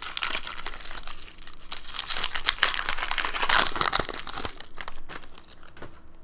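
Foil wrapper of a Pokémon card booster pack crinkling and tearing as it is opened by hand. The crackling is heaviest a few seconds in and dies down in the last second or two as the cards are slid out.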